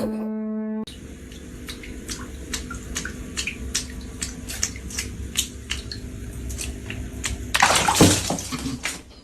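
A held pitched tone cuts off just under a second in, then water sloshing and splashing with many irregular sharp taps, and a louder splash about eight seconds in.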